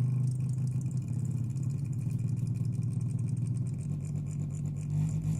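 Subwoofer mounted in a PC case, driven by a low sine-wave signal, buzzing and rattling with a steady engine-like hum, like a V8 idling. Its pitch steps up slightly near the end.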